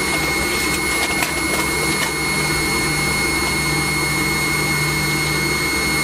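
Cabin noise inside a McDonnell Douglas MD-90 taxiing: the steady rush and whine of its rear-mounted IAE V2500 turbofans at idle, with a high steady tone over a low hum.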